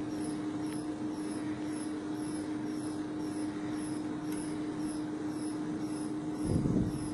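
Testing machine loading a carbon-textile-reinforced geopolymer panel in four-point bending, running with a steady hum and a faint high chirp repeating about twice a second. A short low rumble comes near the end.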